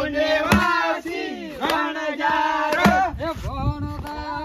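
Several men shouting and chanting in a sing-song way, their voices swooping up and down in pitch, with a few sharp hits about a second apart.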